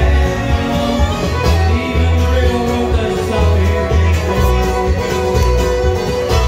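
Bluegrass band playing live: a fiddle bowed over strummed acoustic guitar, with a bass line landing evenly on the beat.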